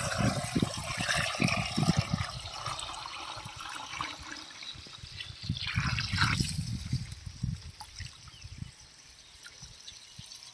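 Water splashing and trickling, strongest in the first few seconds and again briefly around the middle, then fading away.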